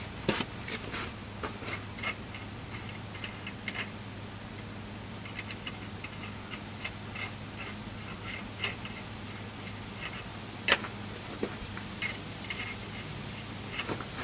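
Scattered light metallic clicks and taps as a ball-joint nut is handled and threaded onto the stud of a new ball joint, with one sharper click a little before eleven seconds.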